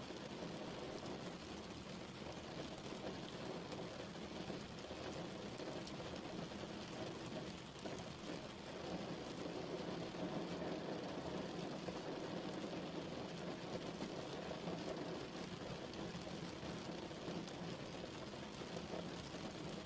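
Steady rain falling, a continuous even patter with fine crackling drops.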